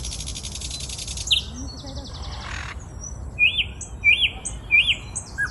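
Birds calling: a fast, high buzzing trill that stops about a second in, then short clear chirps, three evenly spaced ones in the second half.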